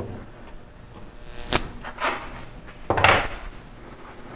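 Bottom bracket reaming tool handled against an aluminum bike frame's shell as it is taken off: a sharp metallic click about one and a half seconds in and a louder clunk about three seconds in.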